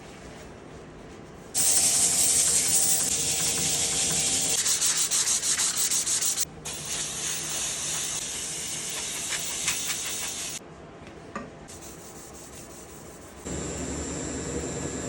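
Sandpaper rubbing steadily over a red oak workpiece, with a brief pause partway through. It stops after about ten seconds, and a quieter hiss with a faint high whine follows near the end.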